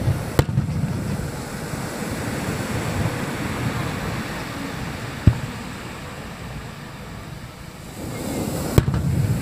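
Aerial firework shells bursting: three sharp bangs, one near the start, one about midway and one near the end, over a steady wash of surf and wind noise.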